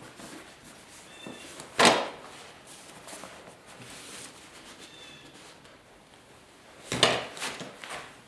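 A staple gun firing twice, about five seconds apart: sharp clacks as staples are driven through the new vinyl cover into the motorcycle seat pan. A couple of smaller clicks follow the second shot.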